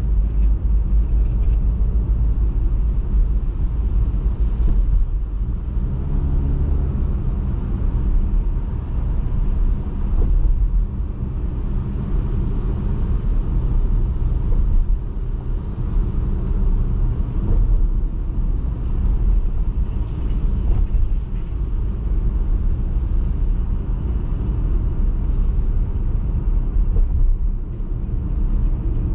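Car driving on a highway: a steady low rumble of engine and tyre noise.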